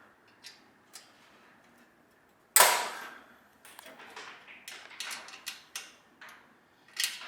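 Allen key and metal parts of a coffee roaster's cyclone assembly clicking and tapping as screws are worked loose. A single loud metal clank comes about two and a half seconds in, followed by a run of irregular small clicks.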